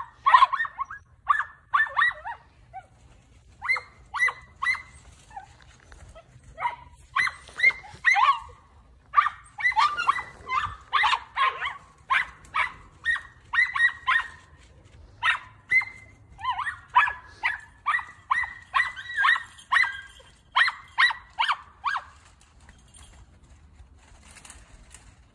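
Miniature dachshunds barking in quick, repeated runs, stopping near the end. They are baying at a brush pile that the owner says definitely held quarry.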